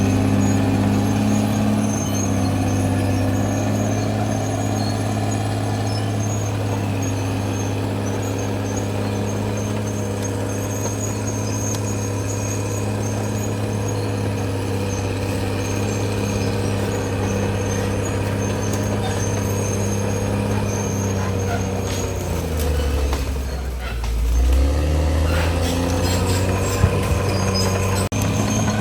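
Caterpillar D6R XL bulldozer's diesel engine running steadily under load, with a faint high ticking throughout. About 22 seconds in, the engine pitch sags sharply and then climbs back up, as the engine lugs down and recovers.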